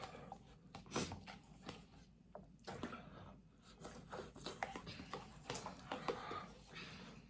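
People eating spicy noodles fast: chewing and slurping with hard, noisy breathing against the heat, broken by scattered clicks.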